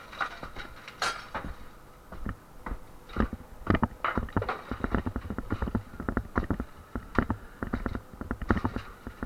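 Demolition work on interior partition walls: irregular sharp knocks and thuds of striking blows, a few a second, with a brief crash of falling debris about a second in.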